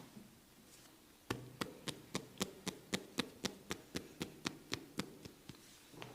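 Percussive massage strokes on the body: a quick, even run of strikes, about four a second, each a sharp crack over a dull thump, growing softer near the end.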